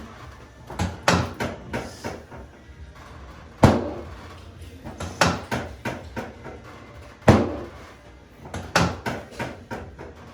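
Knocks and thuds from a chiropractic spinal adjustment on a treatment table. Two loud single knocks come about three and a half seconds apart, with quick clusters of lighter knocks and taps before, between and after them.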